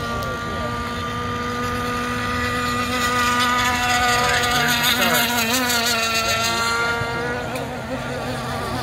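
Gas-engined 1/6-scale RC race boats running at full throttle, a steady high engine note. It grows louder from about three to seven seconds in, and the pitch wavers and bends as a boat passes close.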